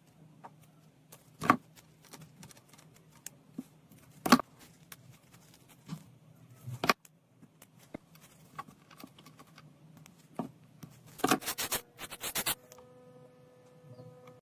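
Small hand tools clicking and tapping on a repair bench while copper wire is worked into a jumper for a broken phone camera flex cable: scattered single clicks, then a quick run of taps about eleven seconds in. A steady electrical hum starts near the end.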